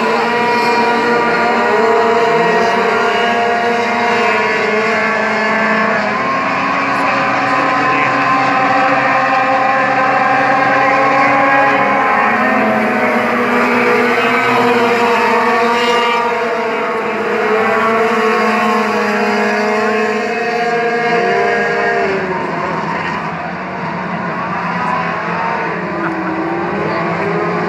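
A pack of sport trucks racing around a paved oval, several engines running hard at once, their pitches rising and falling as they accelerate and lift through the turns.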